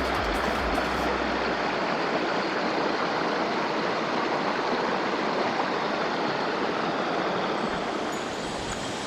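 Mountain stream water rushing steadily over rocks. Background music ends about a second in.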